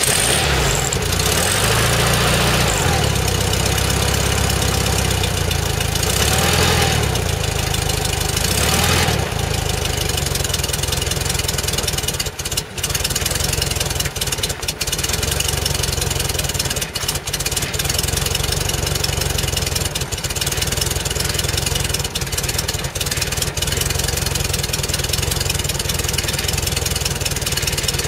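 1974 Volkswagen Beetle's air-cooled flat-four running just after catching, on its first start after three months of sitting and a freshly rebuilt Solex 34 PICT carburetor. Its speed rises and falls a few times in the first nine seconds or so, then it settles into a steady idle.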